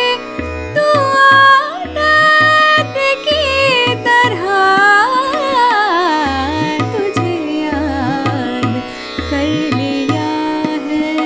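A woman singing a Hindustani classical-style melody with ornamented glides, over a steady drone and a rhythm of deep drum strokes that slide in pitch.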